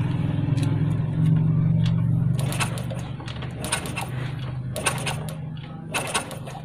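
Kick-starter of a Keeway RCS 125 single-cylinder motorcycle kicked about four times, a sharp clack roughly every second, turning the engine over without it starting while the spark is being checked: the spark plug is worn out and gives only a weak spark. A steady low hum runs under the first two seconds or so and fades.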